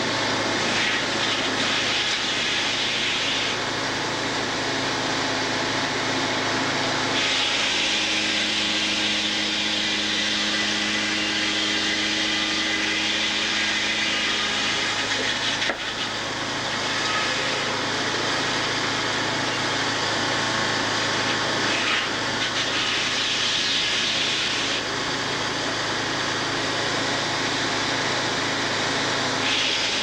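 Sawmill running: the saw and carriage at work on a log, a steady machine noise with a harsher, higher sawing sound swelling in stretches.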